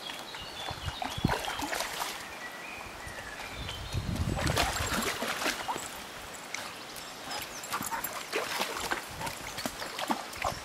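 Poodles wading through shallow river water, their legs making irregular splashes over the steady flow of the stream. The splashing is heaviest about four seconds in.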